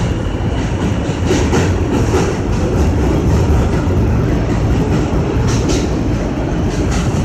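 New York City subway train running on elevated track, heard from inside the front car: a steady rumble of wheels and motors with a few sharp clacks as the wheels cross rail joints.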